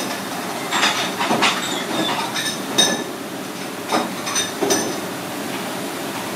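Kitchen knife clicking and tapping against a plastic cutting board while scoring raw abalone, with a few short ringing clinks, about three seconds in and again near five seconds, over steady background noise.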